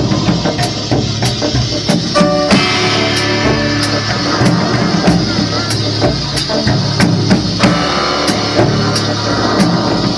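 A live rock band playing an instrumental intro: a drum kit keeping a steady beat with sharp strokes about three a second, over bass and guitar.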